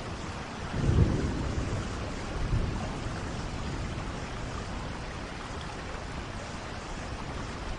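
Steady rain falling, with a low roll of thunder about a second in and a weaker rumble shortly after.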